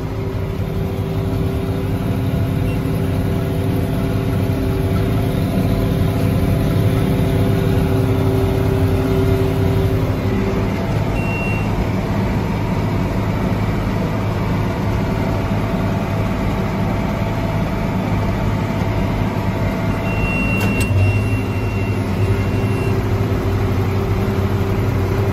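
Tractor engine and New Holland round baler running steadily under load, heard from inside the cab. A short electronic beep comes about eleven seconds in, and a longer steady beep from about twenty seconds in: the baler monitor's alert as the bale reaches full size before net wrapping.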